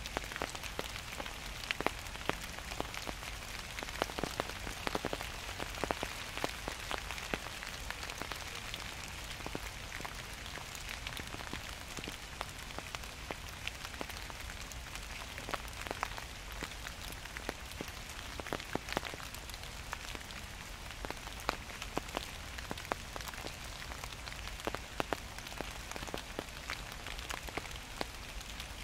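Gentle autumn rain falling steadily: a constant hiss with many separate drops ticking sharply on close surfaces.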